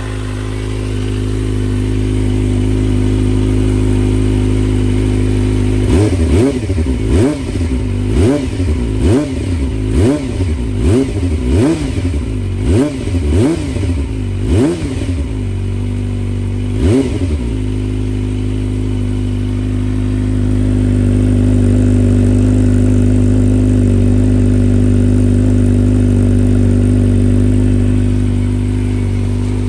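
Kawasaki ZX-25R's 250 cc inline-four breathing through a Yoshimura R-77 full exhaust: it idles, then is blipped about ten times in quick succession, roughly once a second, with one more rev a couple of seconds later. It then settles back to a steady idle that runs a little higher and louder in the later part.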